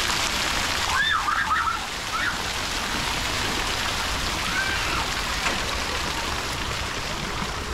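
Steady hiss of splashing water. A few short, high, rising-and-falling squeals come about a second in and again near the five-second mark.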